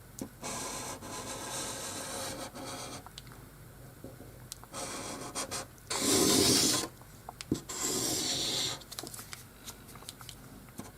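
Saw rasping through a wooden board in several separate strokes of scraping, with no motor running; the loudest stroke comes about six seconds in.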